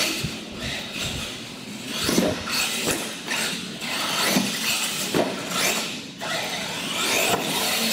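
Radio-controlled monster truck driving on a concrete floor, its electric motors whining and repeatedly rising and falling in pitch as the throttle is worked.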